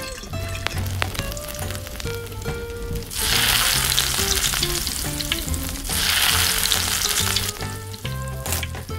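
A small piece of fish sizzling as it fries in hot oil in a tiny wok, a loud steady hiss that starts about three seconds in and stops about seven and a half seconds in. Near the end a few sharp taps of a small knife cutting mustard greens on a wooden board.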